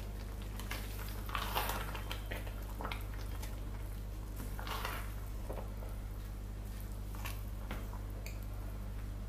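Wooden spoon stirring a thick, slimy jute-leaf sauce in a pot, giving soft, irregular wet squelches over a steady low hum.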